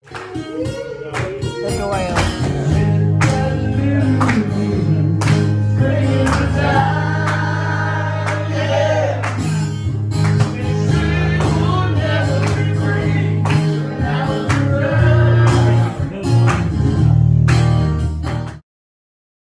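A song with singing over guitar, a steady bass and a regular beat; it cuts off abruptly near the end.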